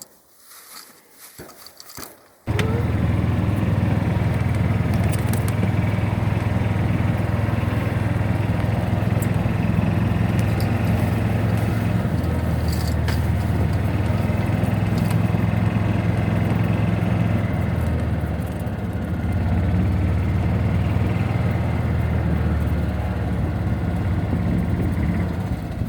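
A small vehicle's engine running steadily while driving, with a low hum. It comes in suddenly about two and a half seconds in.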